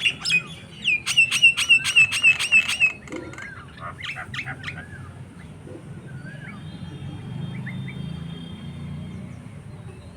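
Birds calling. A loud, rapid run of repeated sharp calls, about five a second, lasts for roughly two seconds near the start. Scattered quieter chirps follow.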